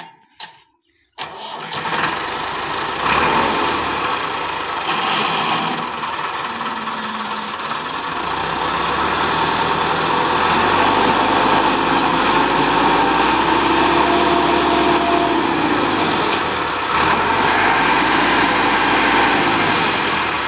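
Massey Ferguson 385 tractor's diesel engine, coming in abruptly about a second in and then running loud, its speed rising and falling as the stuck tractor works to pull out of the mud.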